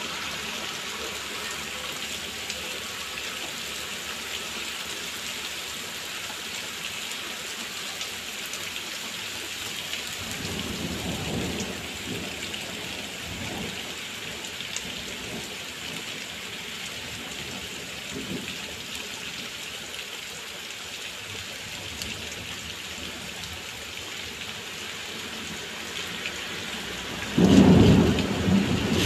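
Heavy rain falling steadily, with a low rumble of thunder about ten seconds in and a loud thunderclap near the end.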